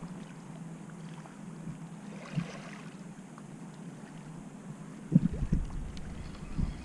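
Outdoor shoreline ambience: small waves lapping on a pebble shore, with wind on the microphone. Several low bumps about five seconds in and again near the end.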